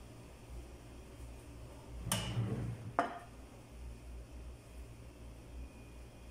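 Kitchenware being set down on a wooden table: a dull thud with a short clattering ring about two seconds in, then a single sharp click about a second later, over faint room hum.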